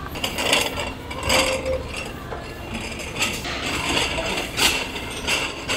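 Dishes and utensils clinking and clattering in a series of irregular sharp knocks, roughly one a second.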